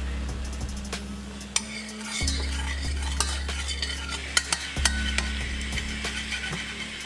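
A spoon stirring sugar into red wine boiling in a stainless steel saucepan, the wine bubbling and sizzling as it reduces to a syrup, with sharp clinks of the spoon against the pan.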